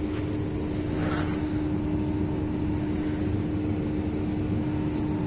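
Truck engine idling: a steady low rumble with a constant hum.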